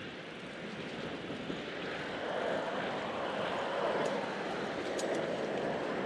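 Traffic noise heard from a bicycle: a steady rushing that grows louder about two seconds in and stays up, with a few faint ticks in the second half.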